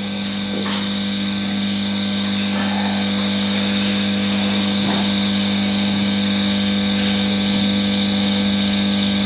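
Steady electrical hum from the microphone and sound system, pitched at multiples of the 50 Hz mains, with a fast pulsing high-pitched chirp running over it.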